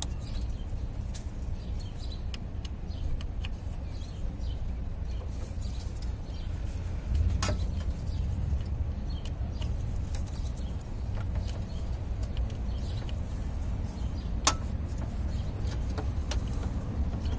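Steady low outdoor rumble with scattered light ticks and two sharp clicks, about seven and a half seconds in and about fourteen seconds in. The clicks come from hands and a tool working at the rear ignition coils of a Honda 3.5 V6 with the engine off.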